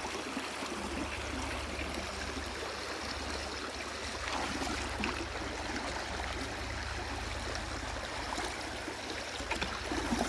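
Swift, shallow creek running over rocks, a steady rush of water, with a few louder splashes near the end.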